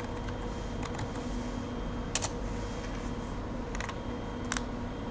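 A few separate computer keyboard and mouse clicks over a faint steady electrical hum.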